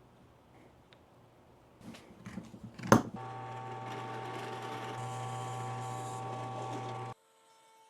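A few light handling clicks and a sharp knock, then a small electric motor runs steadily at a fixed pitch for about four seconds and cuts off abruptly.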